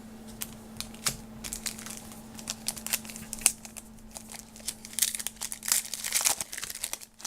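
Trading-card pack wrapper being torn open and crinkled by hand: a run of sharp crackles that grows denser and louder about five seconds in.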